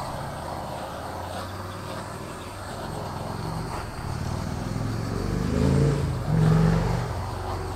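Handheld torch flame hissing steadily as it is passed over wet pour paint to pop bubbles. A low rumble swells under it and is loudest a little past the middle, then eases.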